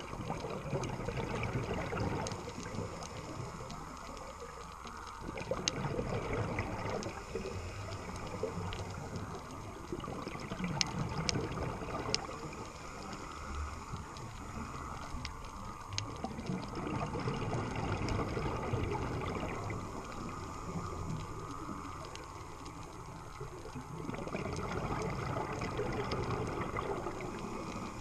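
Muffled underwater sound inside a GoPro's waterproof housing: a rushing, gurgling water noise that swells and fades every few seconds, with a few sharp clicks along the way.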